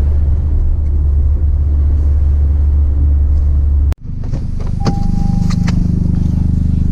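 Toyota GR Corolla's turbocharged three-cylinder running on the move, a steady low drone. About four seconds in the sound cuts off abruptly and gives way to a higher, steadier engine note, with a few clicks and a short high tone.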